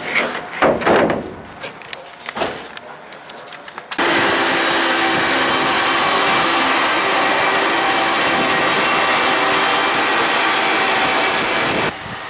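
A combine harvester running steadily: a loud, even machine noise with several steady tones. It starts abruptly about four seconds in and cuts off suddenly near the end. Knocks and rustling come before it.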